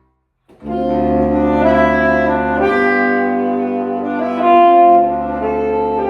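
A jazz quartet playing, with saxophone carrying the melody over sustained low notes. After about half a second of dead silence, the music comes in abruptly at full level.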